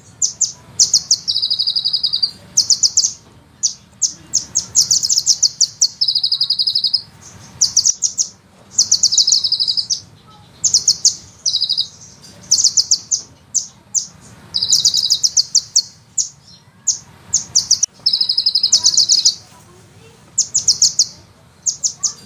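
Sunbird song: runs of rapid, high, sharp notes rolled into trills, each run about a second long, repeated again and again with short gaps.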